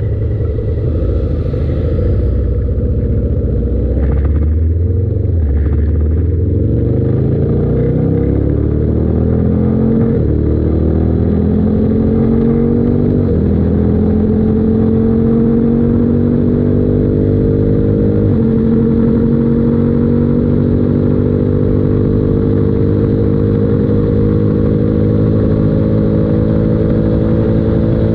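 Honda CRF1000L Africa Twin's parallel-twin engine accelerating hard from a standstill. It revs up through the gears, its pitch dropping at each upshift over the first twenty seconds, then pulls steadily toward top speed with its pitch climbing slowly.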